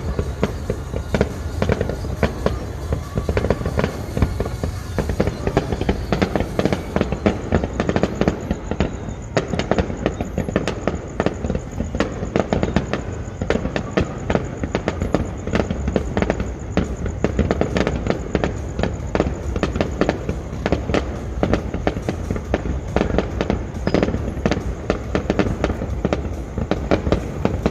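Fireworks going off in a continuous barrage: a dense, unbroken run of sharp bangs and crackles.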